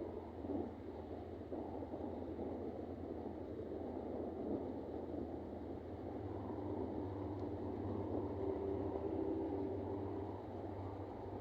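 Low, steady rumble of an approaching diesel freight train, growing gradually louder, with a faint steady hum joining about halfway through.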